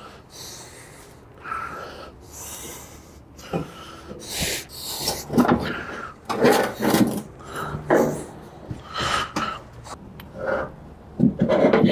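A man straining and breathing hard in a series of effortful bursts while he heaves a heavy heat press over onto its side. Its frame scrapes and knocks against the plywood pallet.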